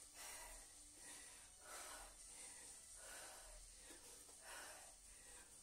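A woman's faint, heavy breathing while doing press-ups: short noisy breaths, roughly one a second.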